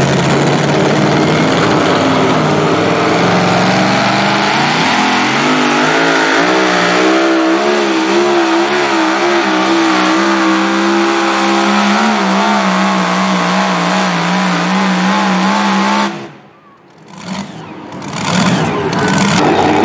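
Supercharged engine of a super modified two-wheel-drive pulling truck at full throttle during a pull. Its pitch rises over the first few seconds, then holds with the note wavering up and down. About sixteen seconds in it drops away suddenly.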